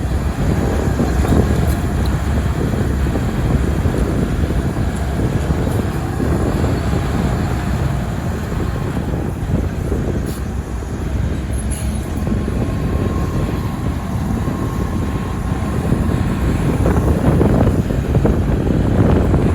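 Heavy diesel earth-moving machinery working under load: a loud, steady engine rumble, with a faint high whine that comes in about halfway through and runs almost to the end.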